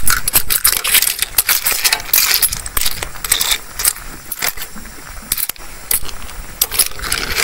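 Shellfish that have opened in the heat clinking and clattering against each other in a cooking pot, a dense run of sharp clicks.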